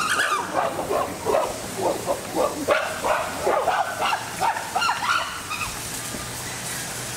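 Chimpanzees calling: a rapid series of short, yelping calls that stops about five and a half seconds in.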